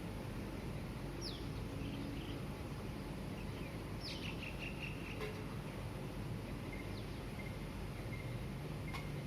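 Birds chirping: a few short, quick falling calls, one followed by a brief trill, then small repeated notes near the end. Under them runs a steady low hum of morning traffic.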